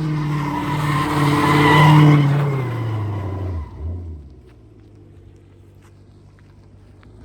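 Dodge Charger's Hemi V8, its exhaust with mufflers and resonators cut off, held at high revs with tires squealing in a burnout. The revs drop about three seconds in, and it settles to a low idle.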